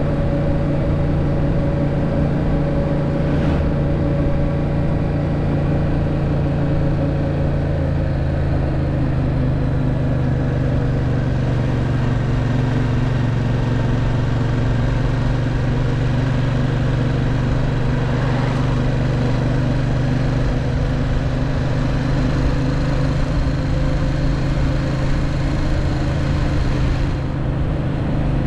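Yamaha MT-07 motorcycle's 689 cc parallel-twin engine running under way at a steady cruise, its note holding nearly constant.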